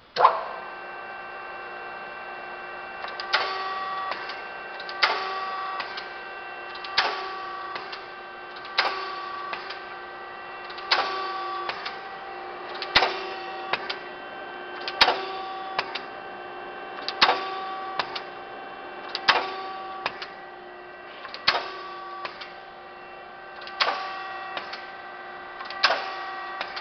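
Amada S1232 power shear starting up: its drive runs with a steady hum, and the ram strokes again and again about every two seconds, each stroke a sharp knock.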